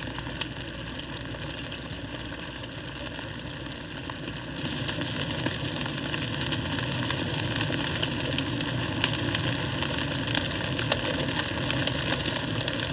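Pine trees burning in a crown fire: a steady rush of flames with dense crackling, which grows louder about four and a half seconds in.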